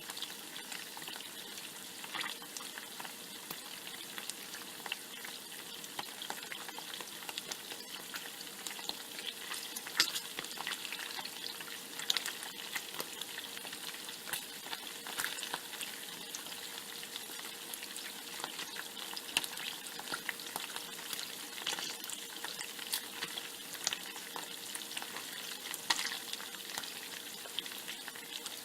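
Bacon frying in a pan: a steady sizzle with frequent sharp pops and crackles of spattering fat.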